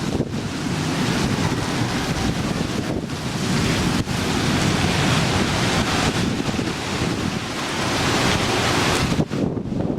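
Storm wind rushing loudly and steadily, with a few brief dips.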